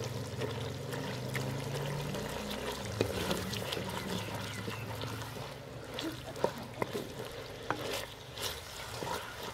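Wooden spoon stirring boneless chicken pieces and ginger-garlic paste frying in ghee in a clay pot: a soft frying hiss with scattered knocks of the spoon against the pot, more frequent in the second half.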